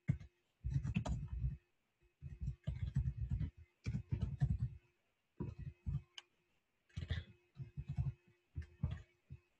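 Typing on a computer keyboard: short runs of rapid keystrokes separated by brief pauses.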